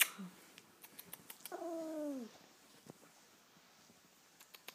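A Chihuahua gives one whine, falling in pitch, about a second and a half in, a wake-up call to get its owner out of bed. A few sharp clicks come before it, the loudest right at the start.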